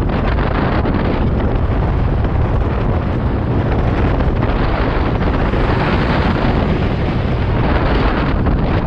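Steady heavy wind noise on the microphone of a camera mounted on a road bike riding at about 47 km/h, a loud, even rush with no distinct events.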